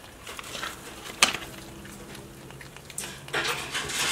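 A porcupine chewing and crunching food, with one sharp crack about a second in and a run of louder crunching near the end.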